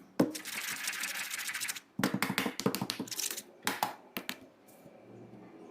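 Scribbling and tapping on a drawing pad: a scratchy rasp for about a second and a half, then a fast run of clicks and taps, then a few separate clicks.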